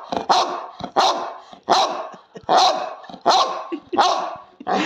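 White-and-tan bulldog-type dog barking over and over at close range, about one bark every three-quarters of a second, each bark starting sharply and trailing off. The dog is barking for attention, demanding cuddles.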